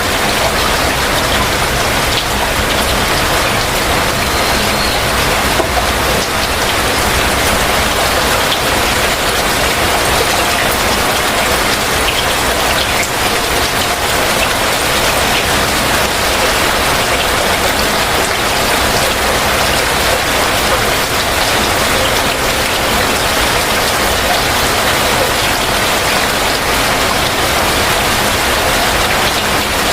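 Heavy rain falling steadily, a dense even hiss with many small drop impacts pattering through it.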